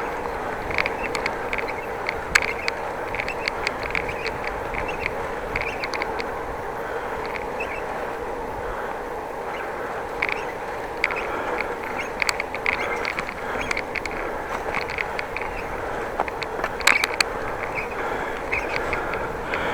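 Bicycle ride with steady tyre and wind noise and many short, high squeaks scattered throughout. The squeaks are the bike's squeaking noise, which the rider says sounds like a bird singing and could have been one.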